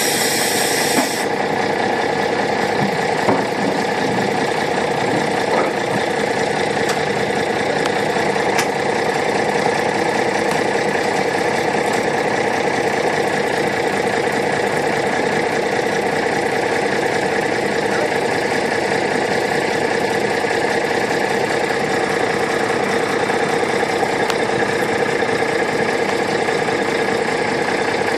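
Truck engine idling steadily. A hiss stops about a second in, and a few light clicks come through over the engine.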